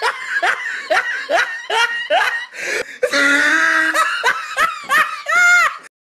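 Loud laughter in a string of short rising 'ha' bursts, about two a second, with a longer drawn-out stretch about three seconds in. It ends on a higher, drawn-out note and cuts off abruptly.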